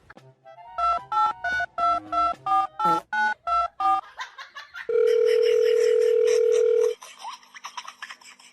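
Telephone keypad touch-tones: about ten quick two-note beeps as number keys are pressed, then a loud steady phone tone lasting about two seconds.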